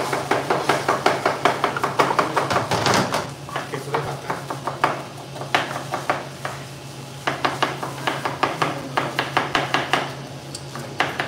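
Knives chopping red onion on plastic cutting boards: a quick run of sharp knocks, several cooks at once, easing off briefly about two-thirds of the way through.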